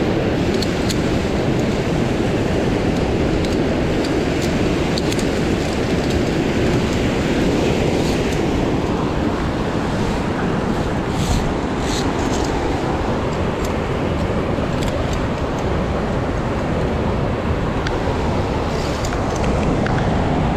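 Steady, loud rush of fast-flowing water in a narrow gorge, with a few light clicks scattered through it.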